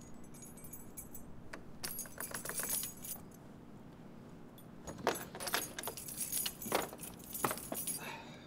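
A bunch of keys jangling and clinking against a padlock and metal door latch as the truck's rear door is unlocked. There are two spells of rattling, the second, from about halfway to near the end, louder.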